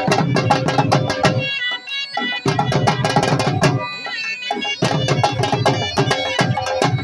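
Folk dance music: a fast, dense hand-drum beat under a melody instrument. The drums drop out twice for about a second, about two and four seconds in, leaving the melody on its own.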